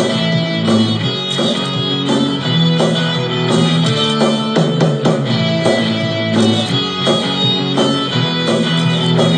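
Background music: guitar-led track with a drum kit and a steady beat.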